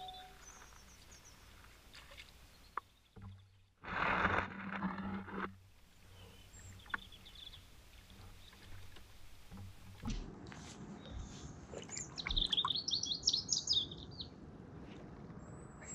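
A songbird sings a rapid twittering phrase of short high notes near the end. About four seconds in there is a louder scraping noise lasting about a second and a half, with faint clicks and splashes scattered through the rest.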